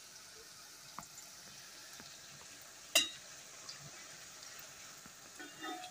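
Doughnuts deep-frying in hot oil in a pot, with a steady sizzle. A metal skimmer clicks against the pot a few times, sharpest about three seconds in.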